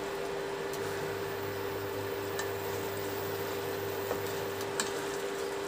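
A spatula stirs and mixes shredded cabbage, potatoes and fried fish-head pieces in a pot, giving soft scrapes and a couple of light clicks. Under it runs a steady hum and a faint even hiss.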